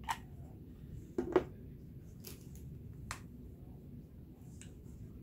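A few light clicks and knocks from a hot glue gun and felt being handled on a wooden tabletop while a seam is glued down. The loudest is a double knock about a second and a half in, over a low steady hum.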